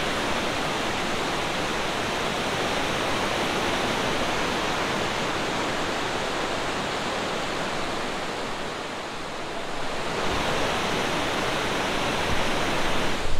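Fast, boulder-strewn mountain river rushing in white-water rapids: a steady, dense roar of water that eases slightly for a moment about two-thirds of the way through, then comes back.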